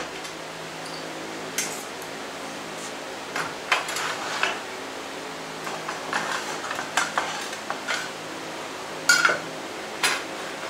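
Aluminium rails of a Festool multi-routing template clinking, knocking and sliding against one another as they are separated and laid down, in scattered light metal knocks, the two sharpest near the end. A faint steady hum lies underneath.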